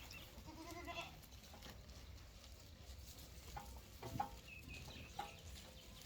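A Barbari goat bleats once, briefly, about half a second in, followed later by a few light knocks.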